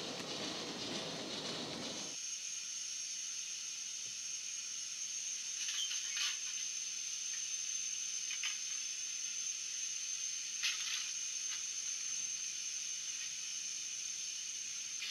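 Kerr Stuart Victory model steam locomotive's DCC sound decoder playing a standing engine's steam hiss through its small built-in speaker: a steady high hiss with a few short spurts, after a louder rushing noise that cuts off about two seconds in.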